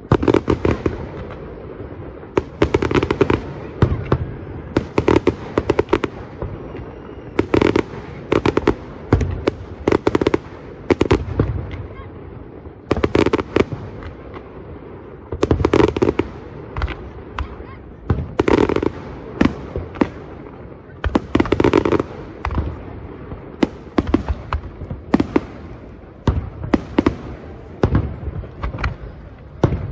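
Fireworks display: aerial shells bursting in a rapid, irregular string of sharp bangs, many of them in tight clusters.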